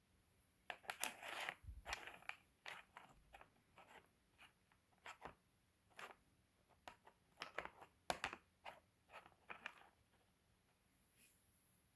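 Pieces of rough seam opal clicking and scraping against each other and a hard surface as they are handled, in an irregular run of sharp little clacks that stops near the end.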